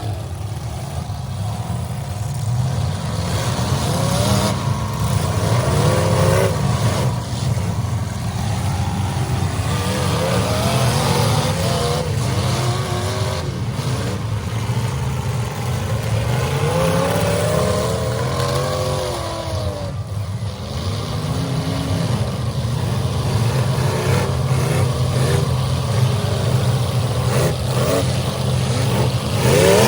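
Several demolition derby cars' engines running and revving together, their pitches rising and falling over one another over a steady low drone.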